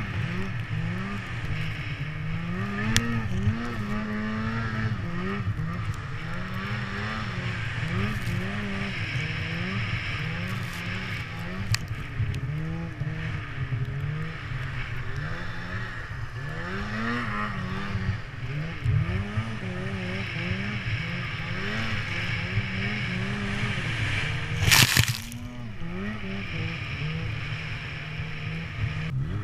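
Polaris PRO RMK 800 snowmobile's two-stroke engine revving up and down over and over under changing throttle. A single sharp knock stands out near the end.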